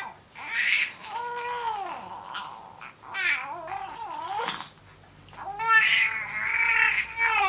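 Five-month-old baby's mewing, cat-like cries: about four drawn-out squeals in a row, some gliding up and then down in pitch, the last the longest.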